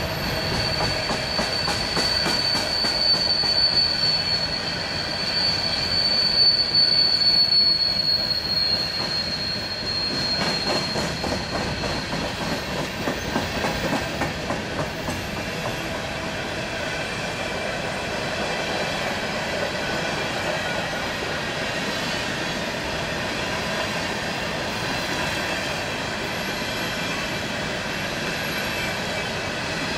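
Cars of an empty coal train rolling past, the wheels clicking over the rail joints. A thin, high steady wheel squeal sinks slightly in pitch and dies away about twelve seconds in, leaving the steady rumble of the passing cars.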